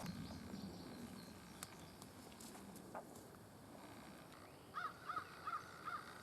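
A bird calling four times in quick succession near the end: short, evenly spaced calls, each rising then falling in pitch, over a faint outdoor background.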